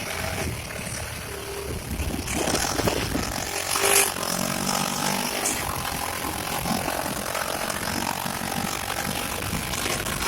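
Engine of a Honda Pioneer 700-4 side-by-side running as it drives the trail, with a sharp knock about four seconds in.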